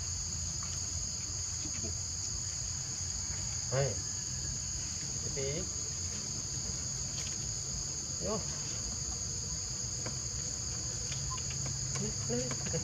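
Steady, high-pitched drone of forest insects, holding two even pitches throughout. A few brief squeaky calls break in about four seconds in, about eight seconds in and near the end.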